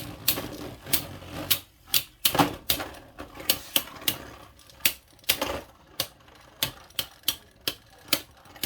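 Two Beyblade Burst spinning tops, Judgement Joker and Helios Volcano, clashing in a stadium: a run of sharp, irregular clacks, about two or three a second, as they hit each other.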